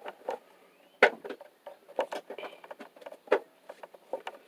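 Hands working insulated electrical wire and twist-on wire nuts while splicing a joint: soft rustling with a few sharp, irregular clicks, the clearest about a second in, at two seconds and just after three seconds.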